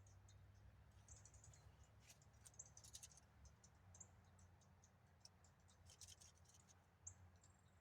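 Near silence: a faint low hum of outdoor ambience, with scattered faint high-pitched chirps and ticks throughout.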